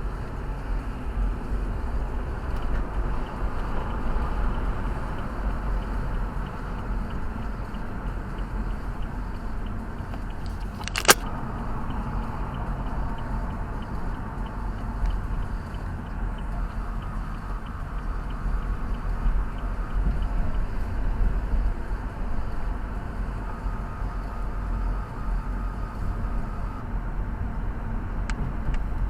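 Car on the move: a steady low rumble of engine and road noise, with one sharp click about eleven seconds in.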